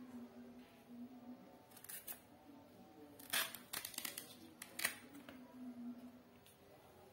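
A kitchen knife cutting into fresh taro stalks, giving a few sharp cutting clicks. The loudest come about three and a half and five seconds in.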